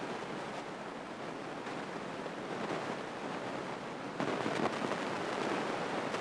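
Steady hiss of a light single-engine airplane in flight, engine and airflow blended into one even noise, a little louder from about four seconds in.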